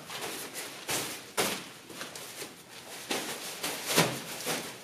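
Pop-up play tent being twisted and folded down: nylon fabric rustling and swishing, with a few sharper flaps and knocks from its flexible steel-loop frame.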